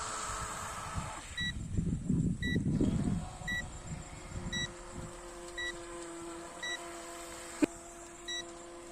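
A small electric motor of an RC speed boat runs with a steady whine, then cuts off about a second in. After that, short high electronic beeps repeat about once a second over a steady low hum, with one sharp click near the end.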